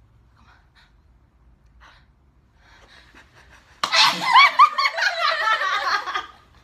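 A woman sneezes sharply about four seconds in, followed at once by a couple of seconds of high-pitched laughter.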